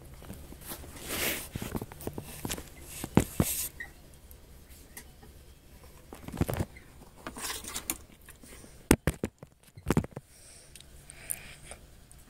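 Phone handling noise: scratchy rustling and scraping against the mic as the phone is picked up, moved and set down, with a few sharp knocks, the loudest about three seconds in and twice near nine to ten seconds in.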